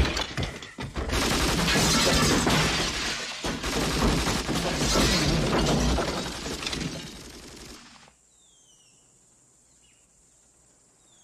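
A sharp blast, then about seven seconds of loud shattering and crashing as a gas-drum explosion tears through a wooden house, cutting away near the end.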